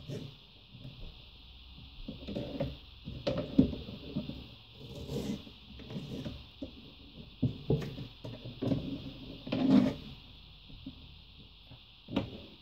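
Kitchen knife slicing bell pepper on a plastic cutting board: irregular knocks and scrapes of the blade against the board, the loudest about three and a half and nine and a half seconds in.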